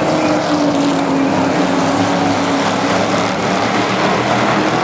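A pack of stock cars racing by on an oval track, several engines running together at speed. One engine tone falls slowly in pitch through the first half as a car passes.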